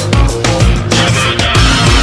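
Loud, aggressive background music with a driving, pounding drum beat.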